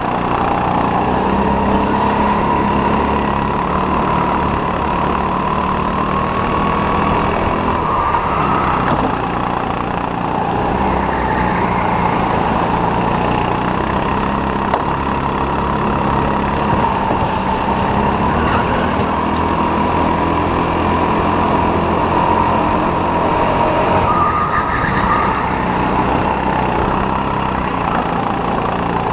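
Onboard sound of a Sodi RT8 racing kart's four-stroke engine running hard, its pitch wavering gently up and down as it brakes and accelerates through the corners.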